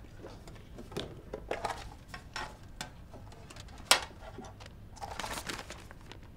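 Handling noises: a small cardboard box being opened and a sheet of paper unfolded, soft rustles and light clicks, with one sharp tap about four seconds in and a longer paper rustle about five seconds in.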